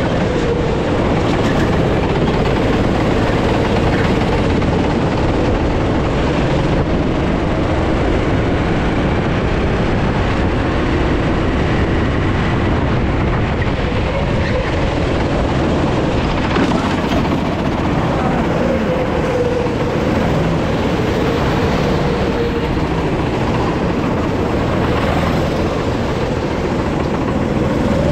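Racing go-kart engine running hard, heard onboard from the kart at close range, loud and steady as the kart laps the circuit, its pitch shifting slightly through the corners.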